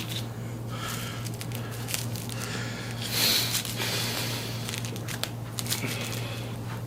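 Rustling and crinkling handling noise as a patient is positioned and worked on during a chiropractic adjustment, with a few sharp clicks and one louder short rush about three seconds in. A steady low hum runs underneath.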